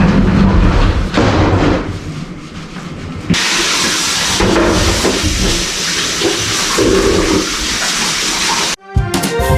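Water rushing steadily, starting suddenly about three seconds in and stopping near the end, where music comes in.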